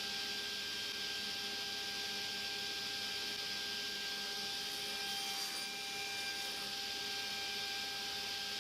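Steady background hiss with a faint electrical hum made of several thin, steady tones, unchanging throughout.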